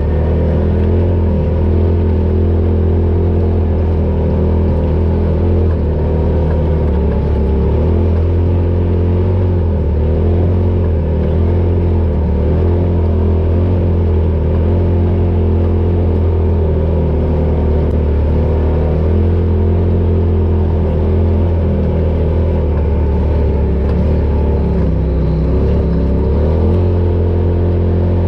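Polaris RZR Pro XP side-by-side's twin-cylinder engine running steadily under way off-road: a continuous low drone that wavers only slightly.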